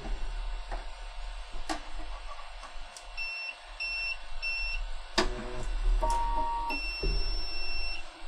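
Eaglemoss V3 3D printer starting up once its hood kill switch is pressed: three short high beeps, then a clunk and a brief motor whirr as it runs its self-checks and homes its axes, then one long beep that ends near the end. A couple of faint clicks come first, from the screwdriver pressing the switch.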